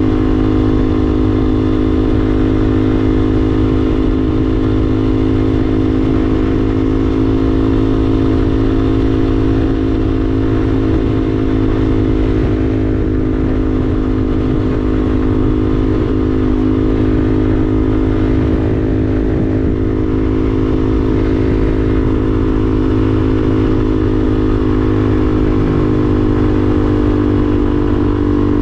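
Yamaha TW200's single-cylinder engine running at a steady, unchanging speed while the bike is ridden.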